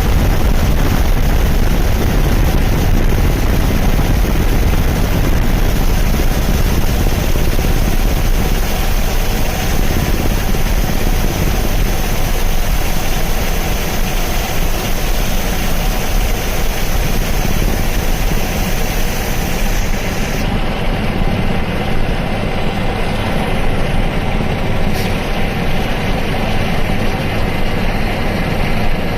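Helicopter rotor and engine running steadily and loudly, a continuous drone.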